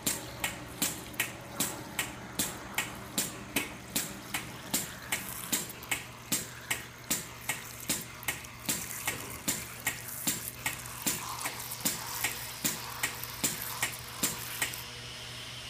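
Piston pump of an EconoMelt 10 hot melt tank clicking steadily at about two and a half strokes a second as it feeds molten wax through the handgun, over a steady hiss and low hum; the clicking stops near the end when dispensing ends.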